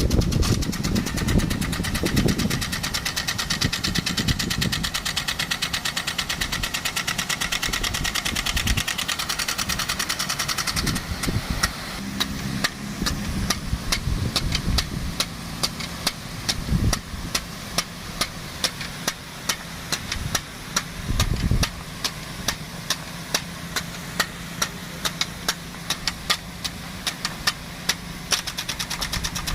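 Engine-driven water pump running steadily while a DN-50 big gun sprinkler's rotating arm clicks over and over, about two clicks a second from the middle on. A few low thumps break in.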